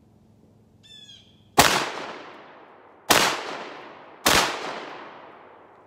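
Three slug shots from a Panzer Arms AR12 semi-automatic 12-gauge shotgun, about a second and a half and then just over a second apart. Each report trails off slowly over more than a second.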